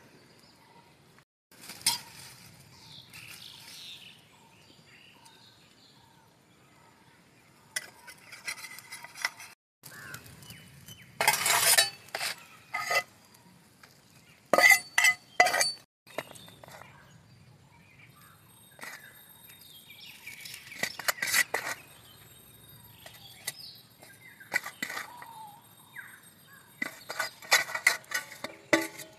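Metal utensils and stainless steel plates clinking and knocking together in scattered, irregular strikes, loudest in clusters about a third to halfway through and again near the end.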